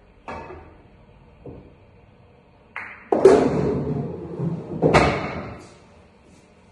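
A billiard shot: a sharp cue-on-ball knock, a couple of light ball clicks, then from about three seconds in a louder rattling rumble of balls knocking and rolling, with another hard knock near the end that dies away.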